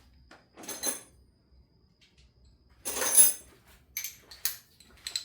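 Metal hand tools clattering and clinking: a brief rustle just under a second in, one loud metallic clatter with a short ring about three seconds in, then a few lighter clinks near the end.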